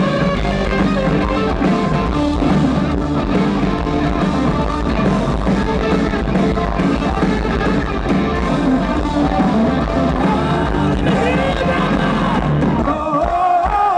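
Live rock band playing loud, with electric guitars, drums and singing. Near the end the instruments drop out, leaving a crowd of voices chanting a rising-and-falling melody.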